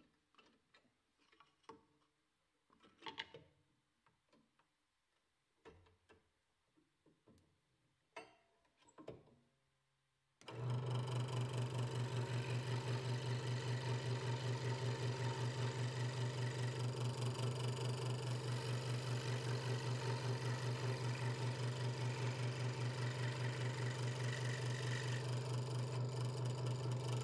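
Light handling clicks and knocks as the blade is fitted through a drilled hole in a thin wooden board. About ten seconds in, a Hegner Multicut 2S scroll saw starts suddenly and runs steadily, with its blade reciprocating through the wood on an internal cut. Its strong low hum pulses rapidly and evenly.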